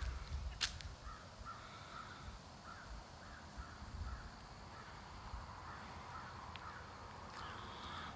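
Faint, rapid series of short bird calls repeating every fraction of a second, with a single sharp click just over half a second in.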